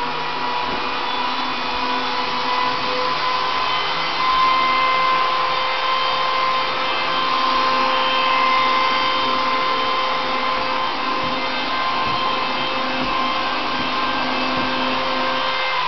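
Electric blower motor running steadily: a vacuum-like rush of air with a steady whine.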